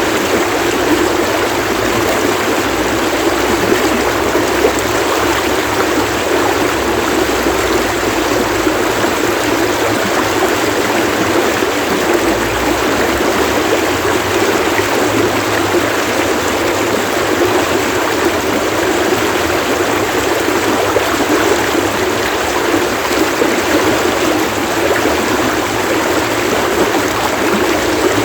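Running water splashing along a stream, a steady, dense rush without a break.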